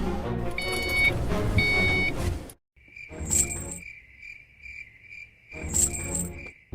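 Cartoon sound track: background music with two short electronic beeps. After a short break comes a steady high-pitched pulsing chirp, about three pulses a second, broken by two brief louder bursts.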